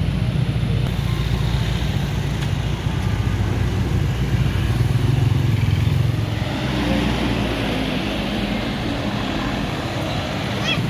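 Bus engine running, a low rumble that eases about six and a half seconds in, over traffic noise.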